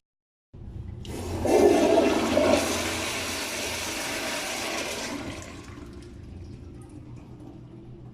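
Toilet flushing: a rush of water that gurgles loudest a second or two in, then a steady rushing hiss that dies down to a quieter trickle after about five seconds.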